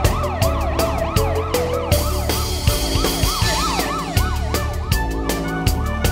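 Cartoon police siren wailing up and down quickly, about three times a second, dying away near the end, over background music with a steady beat.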